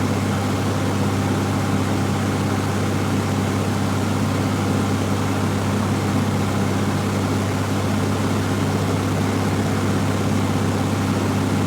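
Cessna 172F's six-cylinder Continental O-300 engine and propeller droning steadily in cruise-like flight at reduced power, heard from inside the cabin. A constant low hum with no change in pitch or level.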